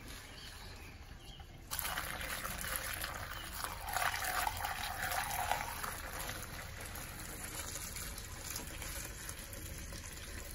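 Fuel pouring from a plastic jerrycan through a plastic funnel into a generator's fuel tank: a steady splashing gush that starts suddenly a little under two seconds in, is loudest around four to five seconds, then carries on a little softer.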